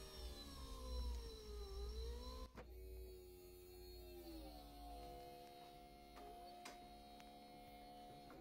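The electric soft-top drive of a 2001 BMW E46 convertible running as the top moves, a steady motor hum. Its pitch sags briefly, then drops to a lower steady tone about four seconds in. The drive now runs after a broken motor supply wire was bypassed with a temporary wire.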